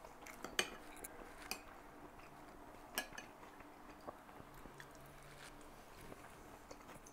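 Metal spoon clinking faintly against a ceramic bowl of beet soup, a few light clinks in the first three seconds, then smaller ticks.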